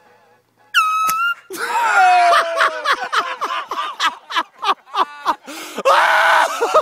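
A hand-held air horn blasts briefly, about a second in, as a golf prank goes off. It is followed by loud yelling and laughter in quick repeated bursts.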